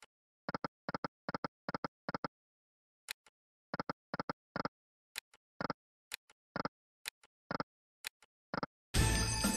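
Electronic sound effects of an EGT 'Extremely Hot' online slot: runs of short clicks and blips as the reels spin and stop on successive spins, with a few sharp single clicks between. About nine seconds in, a loud win jingle starts.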